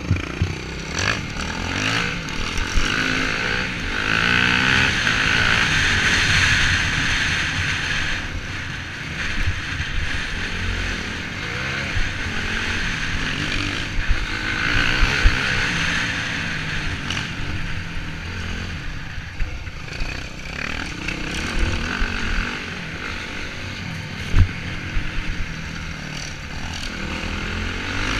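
Dirt bike engine heard from an onboard camera, revving up and down as the bike rides a rough dirt trail, with a few sharp knocks from bumps.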